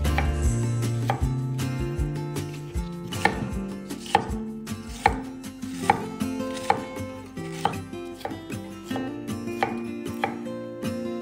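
Knife chopping food on a cutting board in slow, uneven strokes, about one a second, over soft background music.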